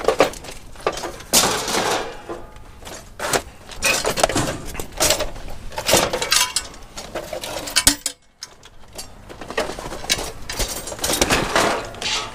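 Scrap metal pieces clanking and clattering as they are handled and tossed onto a pile, in a string of irregular metallic knocks of varying loudness, with a short pause a little past the middle.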